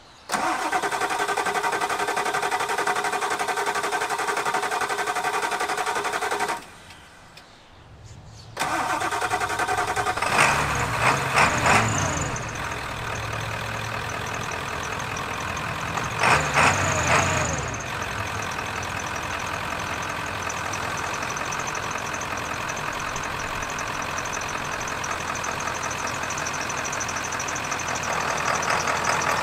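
1995 Ford F-350's 7.3-litre Powerstroke turbo diesel V8 being started: about six seconds of steady cranking that stops, then after a short pause the engine fires. It is revved twice briefly and settles into a steady idle.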